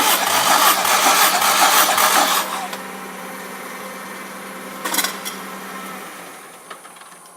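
Honda K20A inline-four engine turned over on its starter during a compression test, cranking with a rhythmic pulse for about two and a half seconds and then stopping. A short click about five seconds in.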